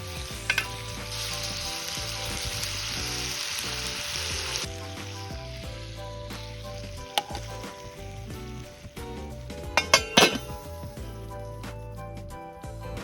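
Food sizzling in a hot pan, the hiss stopping short about four and a half seconds in. Sharp metal clinks of utensils or cookware follow, the loudest a quick cluster about ten seconds in, over steady background music.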